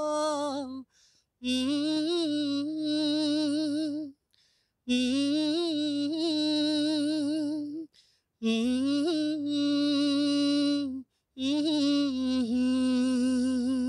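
A man singing unaccompanied into a microphone: a wordless melody in long held phrases of about three seconds each, with wavering vibrato and short breaks for breath between them.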